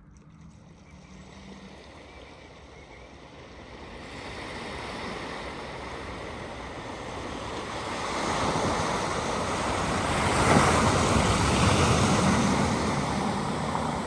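Floodwater rushing and splashing as a vehicle ploughs through a flooded ford, building over several seconds to its loudest about ten seconds in, then easing a little.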